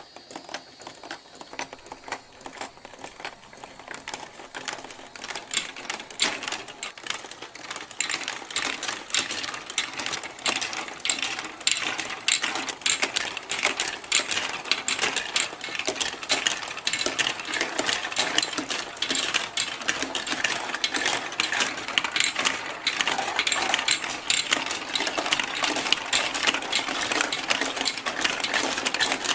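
Many marbles rolling and clattering along plastic marble-run tracks: a dense, rapid stream of clicks that starts suddenly and grows louder and busier as more marbles run.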